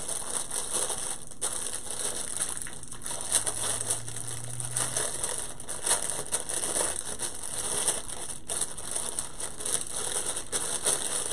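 A thin clear plastic bag crinkling and crackling in the hands as a small decorative pick is unwrapped from it, with many small irregular crackles throughout.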